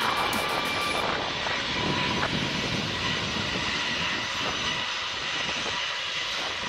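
Jet airliner engines running, a steady rush of noise with a faint high whine in the first couple of seconds.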